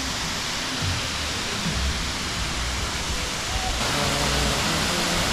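Steady rush of water from a waterfall and its rocky stream. About four seconds in, the sound changes abruptly and turns brighter.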